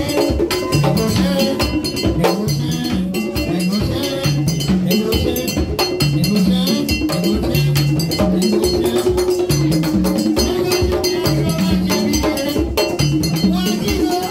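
Haitian Vodou drumming on tall painted hand drums: a fast, steady, driving rhythm with a ringing metal bell-like beat on top.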